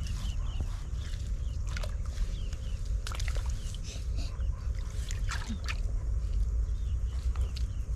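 Water sloshing and splashing in short irregular bursts, with sharp clicks, over a steady low rumble.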